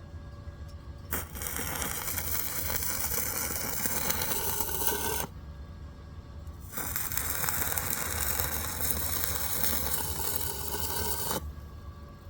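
Electric arc welding on steel: the arc crackles and sizzles in two runs of about four seconds each, with a short break between them, over the steady low hum of the welding machine.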